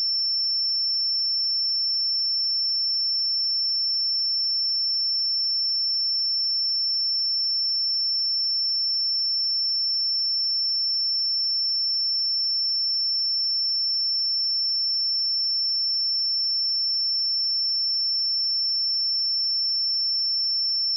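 A pure 5384 Hz sine-wave test tone, a single steady high-pitched note held at constant level.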